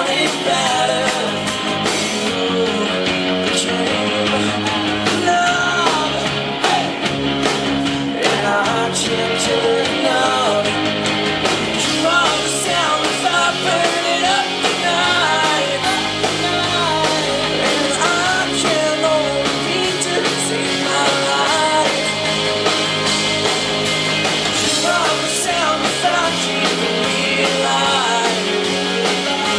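Rock band playing live: a male lead vocal singing over electric guitars and drums, loud and continuous.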